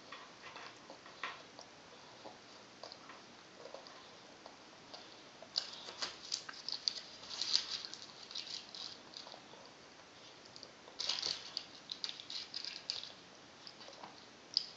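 Light crinkling and clicking of a clear plastic snack tray as crackers and breadsticks are picked out of it by small hands, in two stretches of rustling, the first starting about a third of the way in and the second near three quarters.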